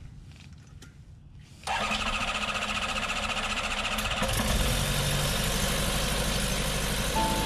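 The Rotax 912iS engine of an Evolution Revolt ultralight trike catching suddenly a little under two seconds in, then running steadily at idle with the pusher propeller turning.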